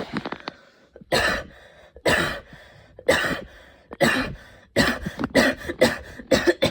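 A woman's intense coughing fit: single coughs about once a second, then a quick run of coughs in close succession near the end.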